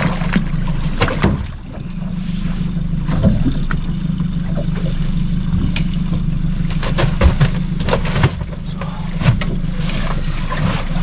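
A small fishing boat's engine idling with a steady low hum, with irregular knocks and clatter on board over it.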